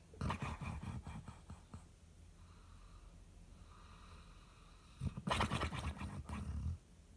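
Snoring: two loud, rattling snores, the first starting just after the start and lasting about a second and a half, the second about five seconds in and lasting nearly two seconds, with soft breaths between them.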